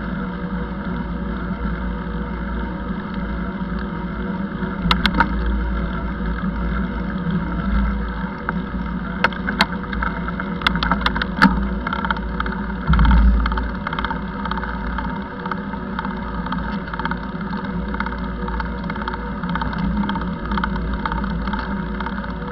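Steady rumble and hum of riding along a bike lane, with road and wind noise on a moving camera. Sharp clicks or rattles come about five seconds in and again around ten to eleven seconds, and there is a low thump around thirteen seconds.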